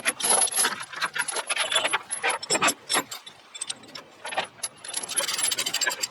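Steel load-securement chains clinking and rattling as they are handled, a run of uneven metallic clanks and jingles with a quieter stretch in the middle.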